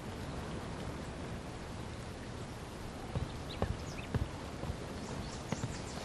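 Quiet outdoor background ambience: a steady low hiss with a few faint, short ticks about halfway through and near the end.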